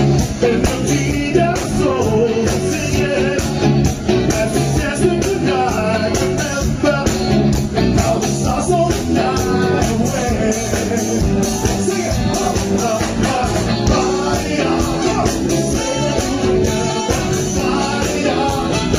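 A cover band playing a song with singing, loud and continuous.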